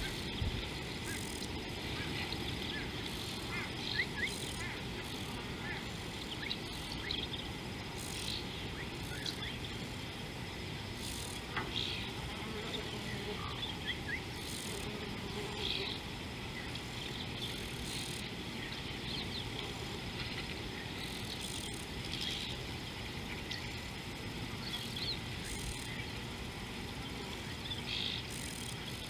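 A steady chorus of insects calling, with short bird chirps now and then.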